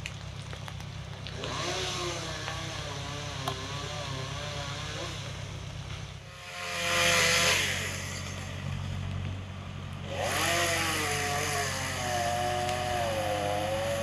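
Chainsaw running in spells, its pitch wavering up and down, with a louder burst about halfway through. A steady low engine drone runs underneath.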